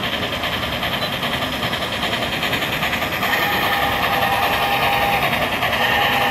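HO-scale model steam locomotive running past with a train of coal hoppers, making a steady rapid beat that grows louder as it nears. A steady tone sets in about three seconds in.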